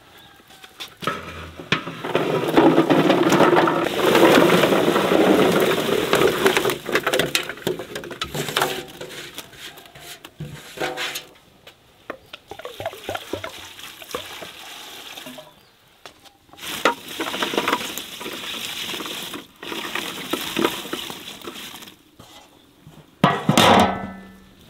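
Water splashing and sloshing, heaviest in the first third, then coming and going with scattered clatter and knocks.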